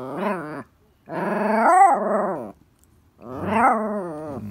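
Toy poodle vocalizing in long, whiny growl-like "talking" calls, each over a second long, rising and falling in pitch. Three calls: the first breaks off about half a second in. It is pestering for a ball.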